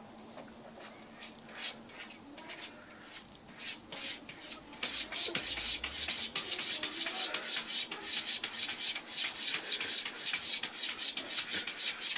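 A cat's claws scratching at furniture: a few scattered scrapes, then from about five seconds in a fast run of quick, repeated scratching strokes, several a second.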